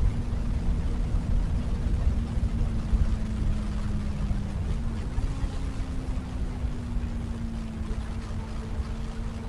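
Wind buffeting the microphone on a moving motorcycle, louder than the exhaust of the Benelli BN600i's inline-four, which holds a steady cruising note. The engine note rises slightly about halfway through, then eases back.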